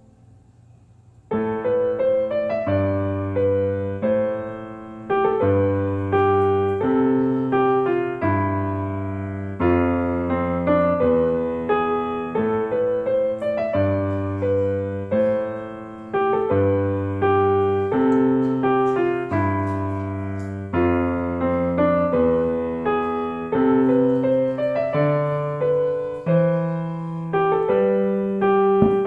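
Background piano music: a slow melody over repeated bass notes, starting a little over a second in.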